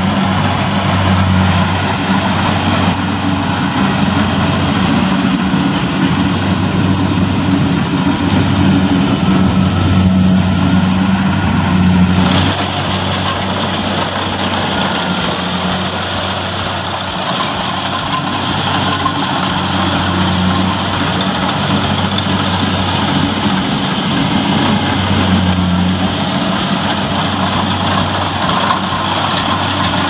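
Kubota rice combine harvester's diesel engine running steadily under load as the machine cuts and threshes standing rice, a continuous drone with a wide mechanical noise over it. The sound shifts abruptly about twelve seconds in.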